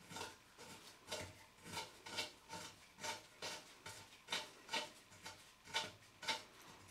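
Steel M12 bolt being turned by a gloved hand into a threaded hole in an aluminium sump, a faint series of short rasping scrapes about three a second. It runs in freely: the threads are undamaged.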